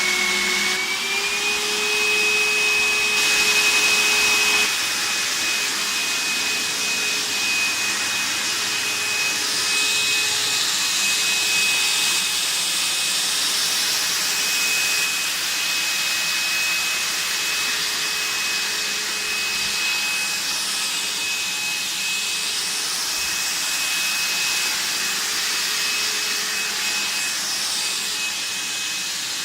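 VAX T1300 upright vacuum cleaner running steadily. Its motor whine rises slightly in pitch about a second in, then holds over a steady rush of air.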